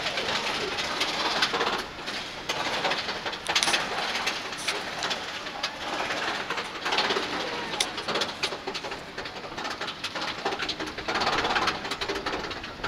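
Onboard noise of a bobsled roller coaster car climbing its lift hill: an irregular rattling of the car and track with a steady rushing hiss.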